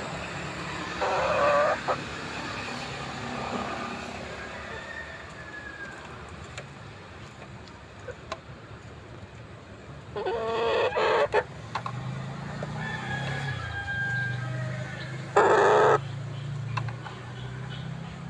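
Chickens calling, with loud calls about a second in, around ten seconds in, and the loudest a little after fifteen seconds.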